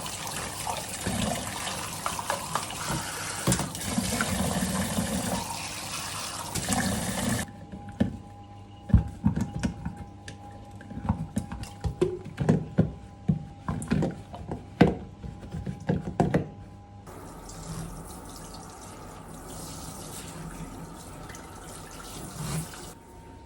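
Kitchen tap running into a sink for the first several seconds, then a run of sharp knocks and clinks of kitchenware being handled, then water running again, more softly.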